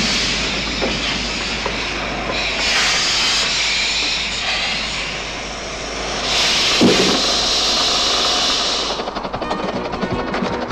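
Miniature 15-inch gauge steam locomotive running with its train: a steady hiss of steam and running noise that swells twice. Music comes in near the end.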